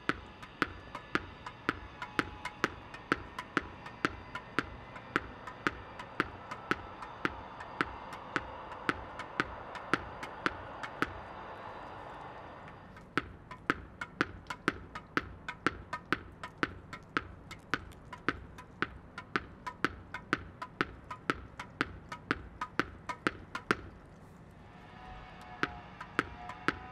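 A tennis ball being bounced over and over: sharp ticks at an even pace of about three a second, stopping briefly near the end before starting again.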